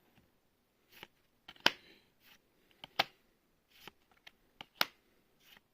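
Magic: The Gathering trading cards being handled: a series of short, sharp snapping clicks, roughly one every second or two, as cards are flicked and slid off a stack.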